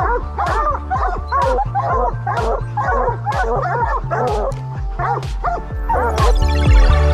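A pack of bear-hunting dogs barking treed at the foot of a tree: many quick overlapping barks and yips, the sign that they have the bear up the tree. Background music with a steady beat runs underneath and gets louder near the end.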